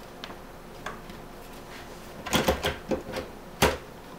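Sheet-metal hard-drive cage of a desktop computer being set back into the case: a few light clicks, then a cluster of metal clacks and knocks about two seconds in, ending in one sharp knock as it seats.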